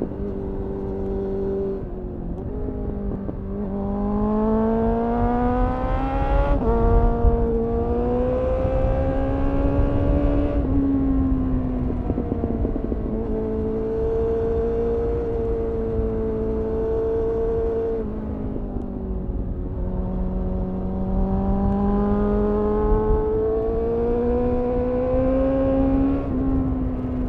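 Suzuki Bandit 600's inline-four through an aftermarket GPR Furore Nero exhaust, heard from on board with wind rush on the microphone. The engine pulls up through the revs, drops sharply on a gear change about six seconds in and pulls again, holds a steady pitch mid-way, then climbs once more and drops off near the end.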